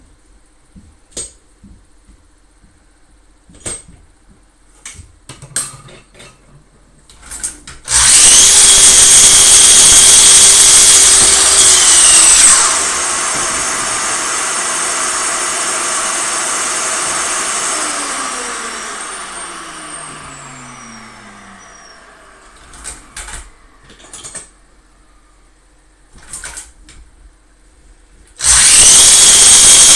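Sliding miter saw cutting red-pine chair-leg stock: the saw is switched on about eight seconds in and runs loud and steady for about four seconds. It is then switched off and the blade winds down slowly, its pitch falling over several seconds. It starts again near the end. Light wooden knocks come before and between, from boards being handled.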